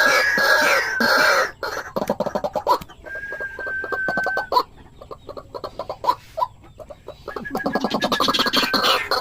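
A pair of white-breasted waterhens calling: long runs of rapid, repeated clucking notes, quieter from about three to seven seconds in, then building again.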